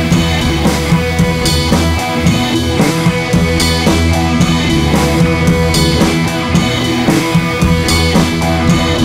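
Rock music with drums, bass and guitar, keeping a steady beat.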